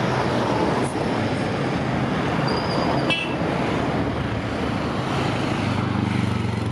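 Road traffic noise: a steady rush of engines and tyres from passing cars and motorcycles. A short high-pitched beep sounds about two and a half seconds in, and a low engine hum comes up near the end as a vehicle draws close.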